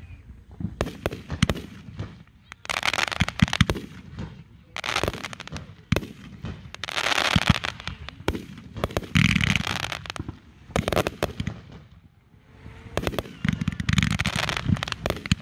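Aerial fireworks going off in a display: a run of sharp bangs from shots launching and bursting, mixed with noisy crackling bursts about a second long, coming in waves roughly every two seconds and building near the end.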